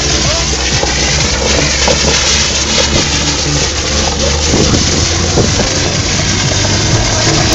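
A car driving along a snowy road while towing a sled, its engine running steadily under a constant rush of wind and tyre noise, with music from the car's stereo underneath.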